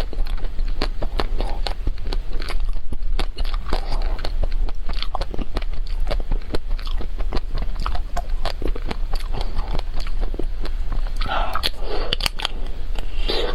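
Close-miked eating of a chocolate-coated ice cream bar: the hard chocolate shell cracks and crunches between the teeth in quick irregular snaps, mixed with wet chewing. There is a longer run of crunching near the end.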